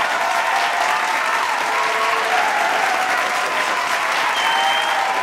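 Steady applause from a group clapping by hand, with a few voices calling out over it.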